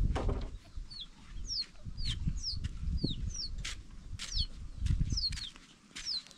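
A bird calling in short high chirps that fall in pitch, about two a second, over irregular low thuds of footsteps on dry ground.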